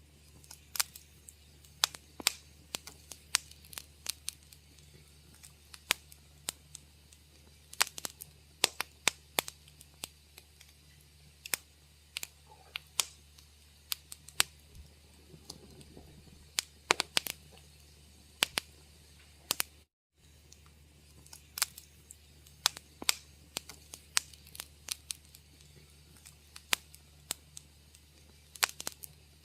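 Wood fire crackling in a fireplace: irregular sharp pops and snaps, several a second at times, over a low steady hum. The sound cuts out for a moment about twenty seconds in.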